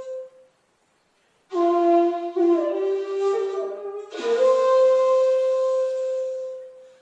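Handmade 2.8 jinashi shakuhachi playing a honkyoku phrase with a breathy tone. After a pause of about a second comes a lower phrase that steps up in pitch; then, a little past the middle, a sharp attack opens a long held higher note that fades away near the end.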